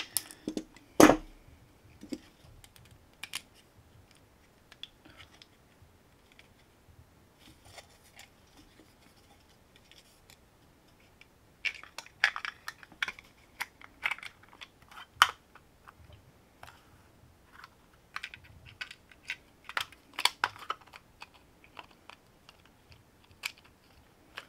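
Light clicks and taps of hand work with pliers and a wire hook eye, with one sharp click about a second in. Later come bursts of clicking and scratching as the wire hook eye is pushed and worked into a 3D-printed plastic lure body.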